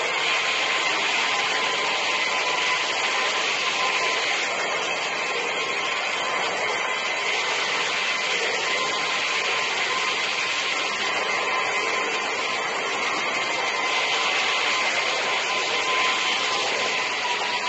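Wet vacuum used for carpet cleaning, running steadily with a constant whine while its hose tool is worked over the carpet.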